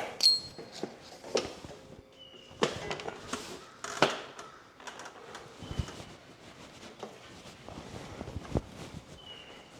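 Hoist straps and their metal hooks being handled and unhooked: scattered light clicks, knocks and rustles, with a short metallic clink right at the start.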